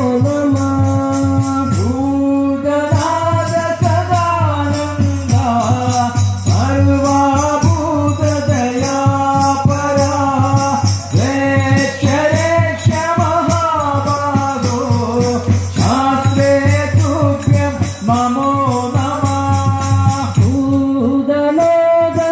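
Devotional chanting of divine names sung to a melody over a steady drone, with jingling percussion keeping a continuous fast beat.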